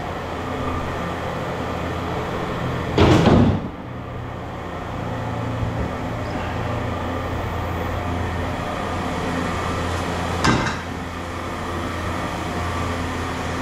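Scrap metal being thrown into a yard bin: two loud crashes, the loudest about three seconds in and a shorter one about ten seconds in. Underneath is the steady hum of an idling engine.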